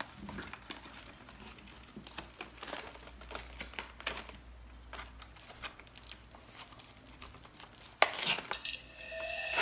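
Small plastic toy hair-styling pieces (a toy blow dryer, brush and comb) being picked up and set down on a table: scattered light clicks and taps, with a sharper knock about eight seconds in.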